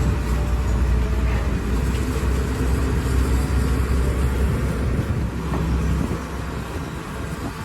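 Excavator's diesel engine running hard with a deep low rumble, which eases off about six seconds in.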